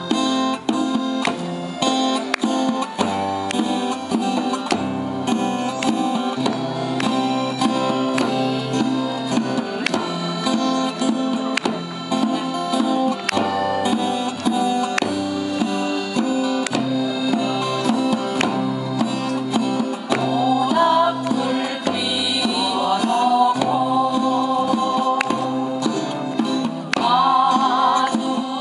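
Music led by plucked guitar; about two-thirds of the way through, a singing voice with a wavering pitch comes in over it.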